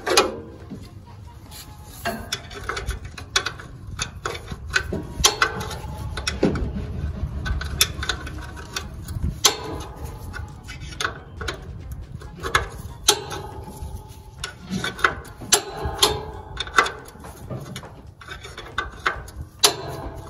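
Irregular metal clicks and knocks of hand-tool work on a lawn tractor's oil drain plug, with some rubbing and handling noise between them.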